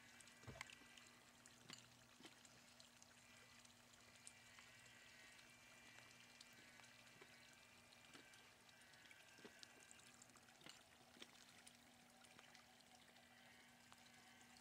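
Near silence: a faint steady hum and hiss, with a few soft clicks.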